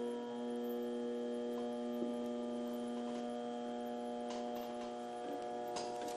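Powered bead roller's motor running with a steady hum as its skateboard-wheel roller presses a raised line into a metal sheet being fed through by hand.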